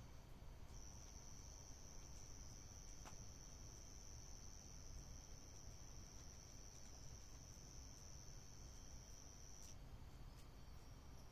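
A cricket trilling one steady high note, faint, breaking off briefly near the end before starting again.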